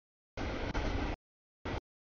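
Double-stack container freight train rolling past the crossing, a steady noise of wheels and cars. It is heard only in chunks: one of under a second, then a brief blip, with dead silence between them where the audio drops out.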